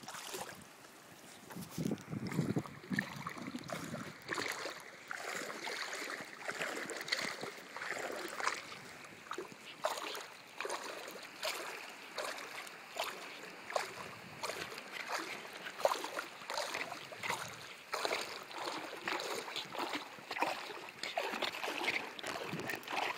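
Shallow seawater splashing and sloshing in quick, irregular strokes as a corgi dog-paddles.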